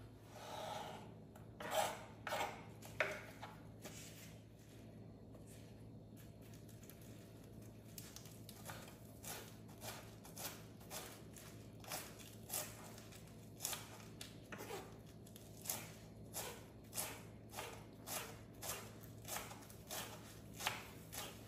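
Kitchen knife chopping tomato, cucumber and bell peppers into small pieces: a few louder knocks at first, then short sharp strokes at a slow, steady pace of about one and a half a second, over a faint steady hum.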